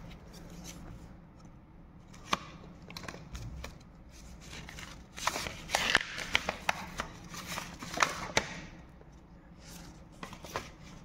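Paper cards and a folded leaflet being handled and shuffled: short rustles with scattered sharp taps, busier a little past the middle and again about three-quarters through.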